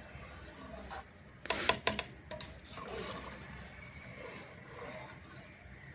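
A metal ladle stirring a thin chicken curry in a large metal cooking pot, knocking against the pot's side in a quick cluster of sharp clinks about a second and a half in, with softer stirring sounds after.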